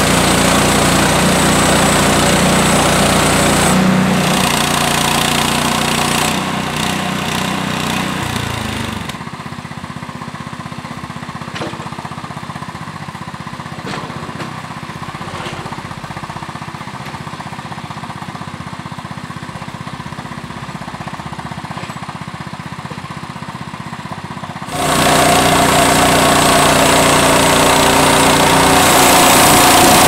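Frontier OS18 portable band sawmill's small gas engine running while the band blade cuts through a white oak cant. The sound drops to a lower level about nine seconds in and comes back up loud near the end.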